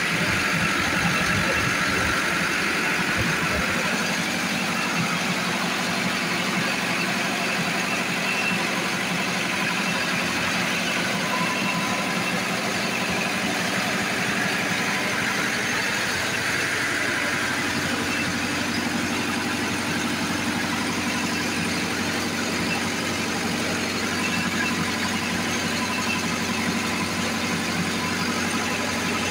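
Perkins four-cylinder diesel engine of a 40 kVA generator set running steadily after a cold start. Its low note shifts slightly about halfway through.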